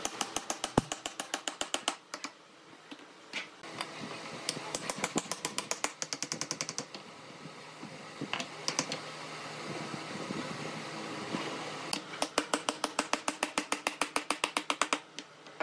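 Claw hammer rapidly tapping wooden dowel spokes into a wooden wheel hub: three quick runs of light wood-on-wood taps, about seven a second, with a few single knocks and handling noise in the pauses between.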